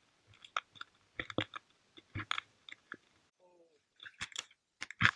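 Scattered sharp clicks and crunches in loose clusters, loudest near the end: someone moving over the rock and dirt floor of a cave, with footfalls and the handheld camera knocking and rubbing.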